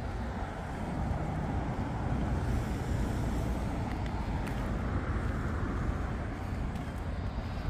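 Road traffic noise, a steady rush that swells a little through the middle.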